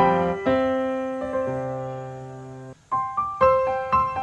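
Background piano music: struck notes and chords, one chord held and fading away, a brief break, then the melody starting again.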